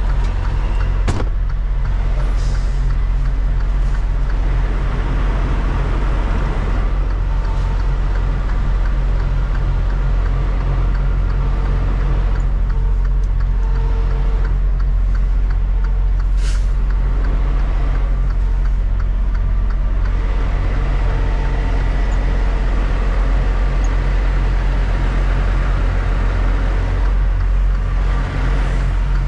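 Semi-truck diesel engine running steadily at low speed, heard from inside the cab as the tractor-trailer is maneuvered. There is a sharp click about a second in and a short hiss of air about sixteen seconds in.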